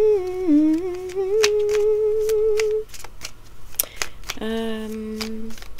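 A woman humming: one long note that wavers and then holds for nearly three seconds, and a shorter, lower note near the end, over light repeated clicks of tarot cards being shuffled by hand.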